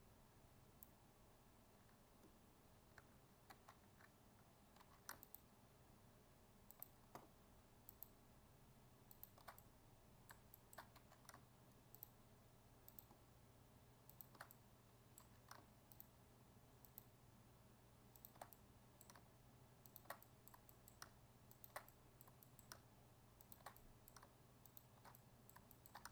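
Near silence with faint, scattered clicks of a computer mouse and keyboard, over a low steady hum.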